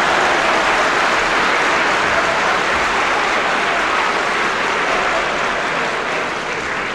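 Live audience applauding after a punchline, a steady clapping that slowly fades toward the end.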